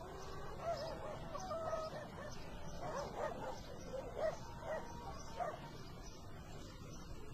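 Dog whimpering and yipping: a run of short, high whines that bend up and down, coming thickest about three to five and a half seconds in.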